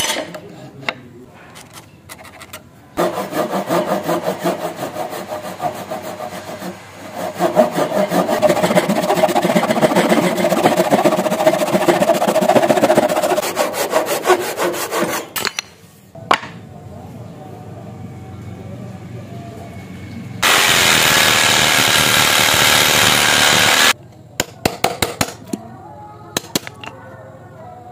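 Hand saw cutting through a clamped wooden board in quick, continuous strokes through most of the first half. Later comes a loud, steady hiss lasting about three seconds that stops abruptly, and near the end a chisel paring the wood gives light, scattered clicks.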